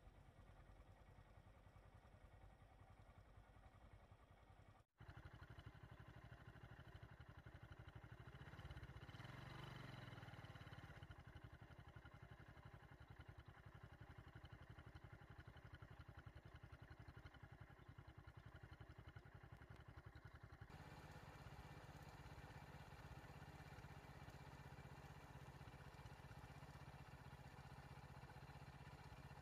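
Faint, steady low rumble of vehicle engines and road noise, swelling briefly about nine seconds in as a vehicle goes by, with a short dropout about five seconds in.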